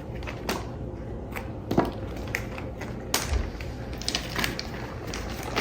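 Irregular light clicks and taps, a few louder than the rest: frozen cilantro cubes being popped out of a tray and dropped into a freezer bag.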